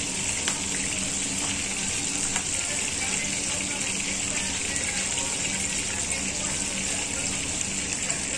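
Pot of vegetable soup boiling on a gas stove: a steady bubbling hiss, with a couple of light ladle clicks as it is stirred.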